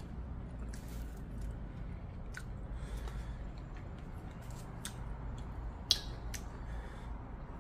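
Eating sounds up close: chopsticks clicking as food is picked up and handled, with chewing, heard as scattered short clicks and one sharper click about six seconds in, over a steady low hum.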